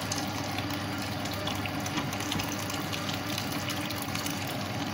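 Water poured from a plastic jug into a steel pot of rice in liquid: a steady splashing pour.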